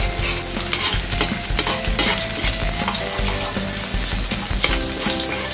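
Minced garlic sizzling in hot oil in a metal wok, stirred with a metal ladle that scrapes the pan in repeated strokes.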